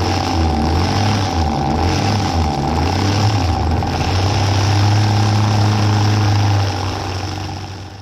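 Gas string trimmer's small two-stroke engine running steadily with a constant whine, then dying down near the end. This is the trimmer whose head won't spin at full power.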